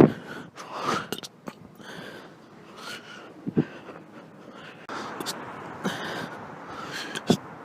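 A woman hiccuping: several short, sudden hiccups, one to two seconds apart, with faint breathing between them.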